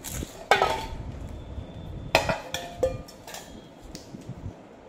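Stainless steel bowls clanking. There are two strong knocks, about half a second and two seconds in, each ringing briefly, followed by a few lighter clinks.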